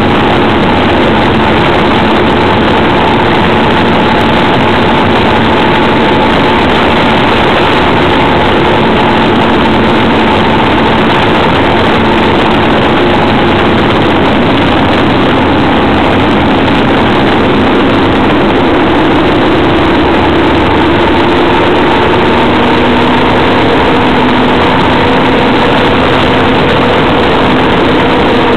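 Motorcycle engine running at cruising speed under a loud, constant rush of wind and road noise, its note holding steady and shifting in pitch about two-thirds of the way through.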